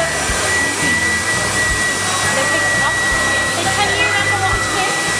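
Steady rush of air from the air jets of a toy-store pretend bathtub station blowing over a plush toy, with a thin high-pitched whine held over it.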